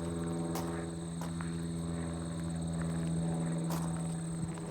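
Steady low hum with a few soft footsteps on the labyrinth path.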